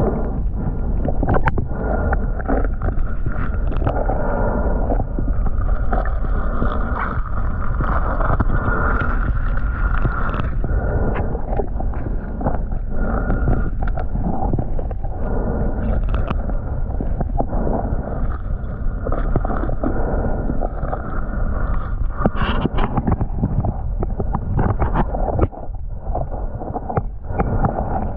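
Muffled underwater noise picked up by a waterproof camera: a steady rushing and gurgling of water, with scattered clicks and knocks as the snorkeler moves.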